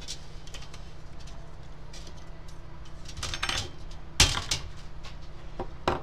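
Handling noise: a few light knocks and clatters, the loudest about four seconds in, over a low steady hum.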